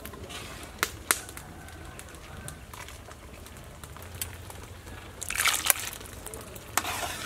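Metal ladle stirring sliced bamboo shoots in water in a metal pot: two sharp clinks of the ladle against the pot about a second in and another near the end, with a loud burst of sloshing and scraping about five seconds in.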